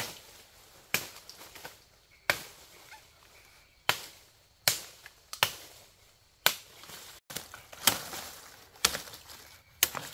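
Repeated chopping blows: about nine sharp strikes, roughly one a second at an uneven pace.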